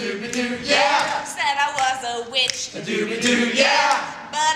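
Unaccompanied voices singing an improvised doo-wop-style song, a man's voice most prominent.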